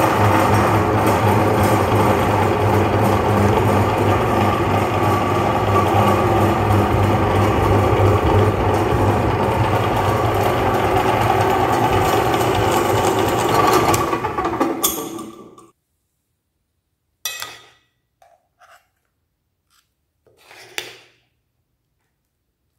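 Electric meat grinder running steadily under load as it forces ice cream through its cutting plate, with a low motor hum. About fourteen seconds in it is switched off and winds down to a stop, followed by a few brief clicks and scrapes of spoon and knife on the plate and grinder.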